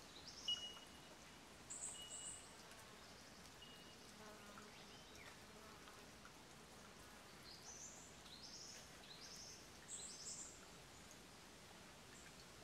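Faint outdoor ambience with small birds chirping: runs of short, high, rising notes near the start and again about eight to ten seconds in, over a quiet steady hiss.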